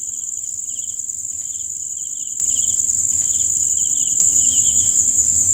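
Night insects, crickets, trilling: a steady high trill with a second, lower chirp pulsing about twice a second over it, growing louder about two seconds in.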